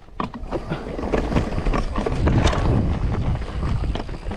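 Mountain bike riding fast down a dirt trail: tyres rolling over dirt and roots, with a rapid run of knocks and rattles from the bike and wind buffeting the microphone. It grows louder about two seconds in.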